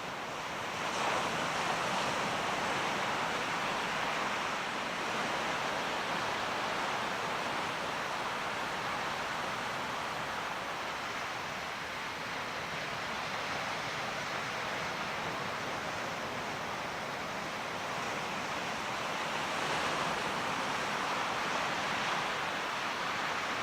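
Steady rushing noise of wind and sea waves, even and unbroken, swelling slightly now and then.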